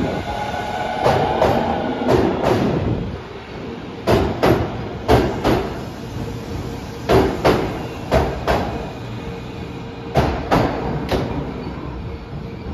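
Osaka Metro 25 series subway train pulling out and gathering speed past, its wheels clacking over rail joints in pairs, about one pair a second, over a steady hum. The clacks stop near the end as the last car leaves.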